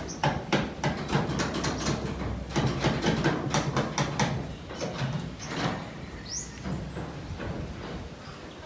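Rapid, irregular knocking and clattering of building work, with a short rising chirp about six seconds in.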